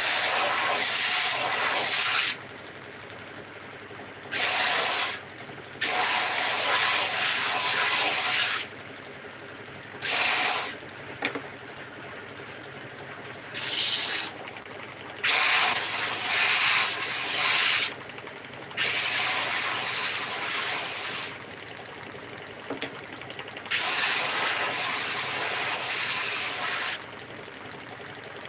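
Stationary belt sander running steadily, with wooden slats pressed against the moving belt about eight times: each pass is a loud abrasive hiss lasting from under a second to about three seconds as the sanding belt strips the old lacquer finish off the wood.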